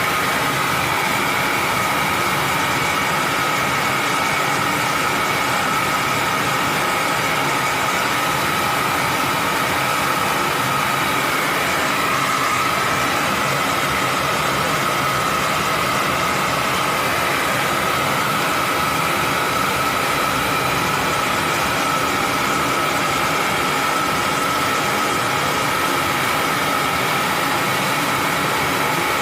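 Gas brazing torch burning steadily on copper tubing: a constant hiss with a faint steady whine over it.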